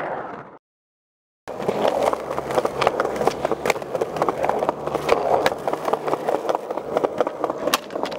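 Sound fades out and cuts to silence for about a second, then skateboard wheels rolling on rough pavement, a steady rumble peppered with many small clicks and knocks.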